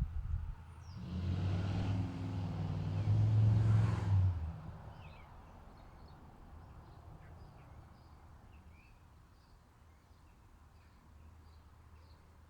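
A motor vehicle passing, its engine rumble swelling for about three seconds and then fading away. After it, small birds chirp faintly in short scattered calls.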